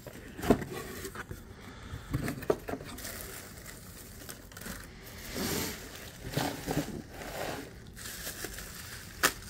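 A cardboard box being opened and crinkle-cut shredded paper filler rustling and crinkling as hands dig through it and lift an item out, with a few sharp clicks and taps of cardboard, the loudest near the end.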